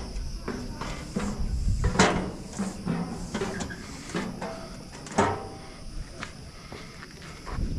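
A hiker's footsteps and scuffs, with irregular knocks and clanks against steel stairs and railings, the loudest about two seconds in and again after five seconds. A low rumble of handling or wind on the camera microphone runs under them.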